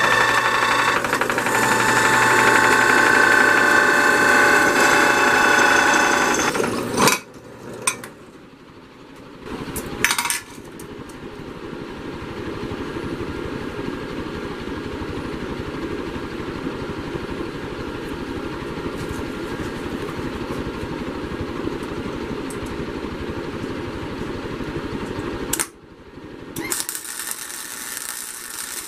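Drill press boring into a steel plate, the running drill and bit giving several steady high whining tones, for about the first seven seconds. After a break with a few clicks, a steady hum runs on, and about two seconds before the end a flux-core wire welder's arc starts crackling.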